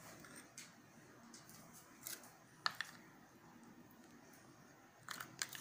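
A few faint clicks and scrapes of a metal spoon against a small glass bowl as cake batter is scooped out and dropped into a tin, with a cluster of clicks near the end.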